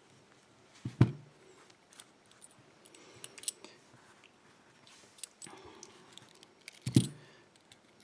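Small metal parts of a BKS euro lock cylinder being handled on a cloth-covered table as the plug is pulled out and the pins come free: light scattered clicks, with two sharper knocks about a second in and about a second before the end.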